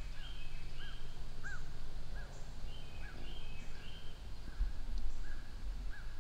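Small woodland birds calling: a regular series of short rising-and-falling chirps, with clusters of higher notes now and then, over a steady low rumble.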